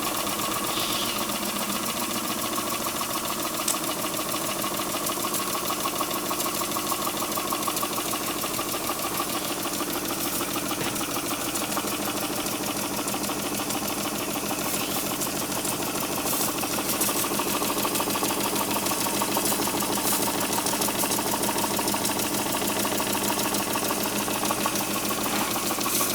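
Bing 6101 twin oscillating-cylinder toy steam engine running steadily at speed on steam, a fast, even mechanical clatter with a hiss, picking up a little in loudness about two-thirds of the way in.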